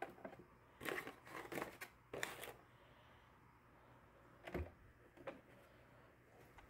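Faint rustling and crinkling of K-cup coffee pods being handled at a Keurig single-serve brewer, then a single sharp plastic click with a dull knock about four and a half seconds in.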